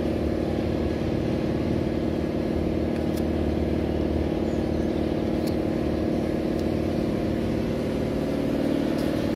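An engine running steadily at constant speed: an even drone with a low hum beneath, holding the same pitch throughout.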